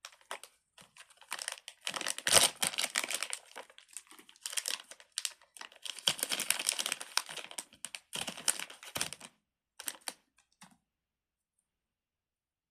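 Plastic wrapper crinkling and rustling in irregular crackles as a small toy is unwrapped by hand; it stops near the end.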